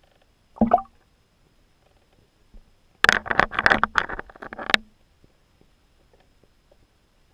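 Splashes and knocks as objects drop into the water of an ice-fishing hole, heard from an underwater camera: one short knock under a second in, then a rapid cluster of sharp splashing clicks for about two seconds from about three seconds in.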